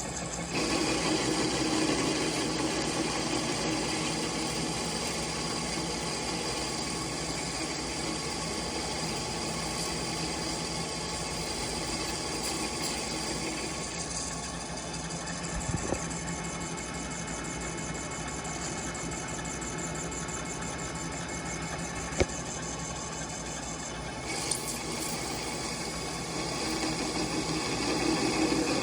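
Metal lathe running while a parting tool cuts into the turning workpiece, a steady machine noise with many tones that shifts in character a couple of times, plus two sharp ticks. It sounds like the old parting insert is giving out.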